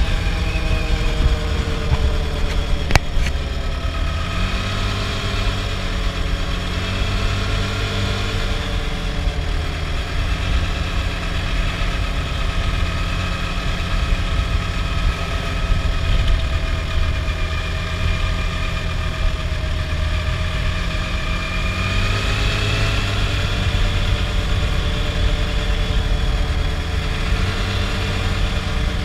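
Adly Hurricane 320 quad's engine running steadily as it rides. Its pitch shifts about four seconds in and rises again about twenty-two seconds in, with a sharp click about three seconds in.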